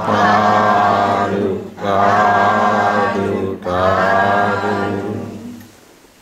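Voices chanting together in unison in a Buddhist devotional chant: three long, drawn-out phrases in a row, each just under two seconds, with short breaks between them.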